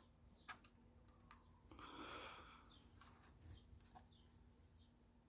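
Near silence, with a few faint clicks and a soft rustle about two seconds in: the plastic Lego rifle being handled.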